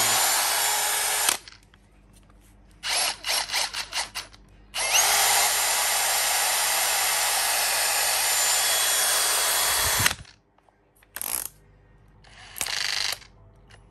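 Hilti SF 6H-A22 cordless drill running with no load. It gives a short run, then a quick series of trigger blips, then a steady run of about five seconds that rises in pitch as it spins up and cuts off, and then two more brief bursts near the end.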